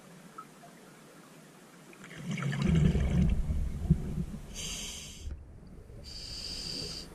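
Scuba diver's breathing through a regulator underwater: a burst of exhaled bubbles gurgling for about two seconds, starting about two seconds in, then a hiss from the regulator on the in-breath, broken into two parts near the end.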